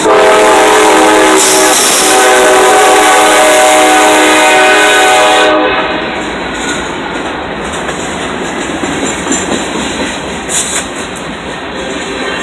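Freight locomotive air horn sounding one long, loud chord of about five and a half seconds, then cutting off, leaving the train rumbling and its wheels clattering over the rails.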